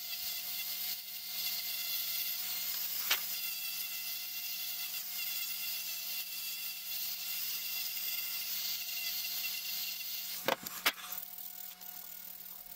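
Handheld Dremel rotary tool running with a steady high whine, its sanding drum shaping a small wooden intarsia piece. A sharp knock about three seconds in and two more near the end.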